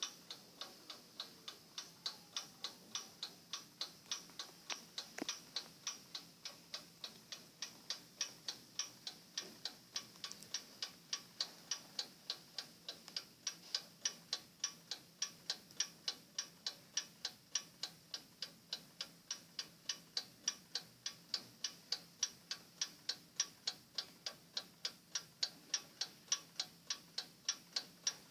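Junghans monkey figure clock ticking: a rapid, even train of sharp ticks, about three a second.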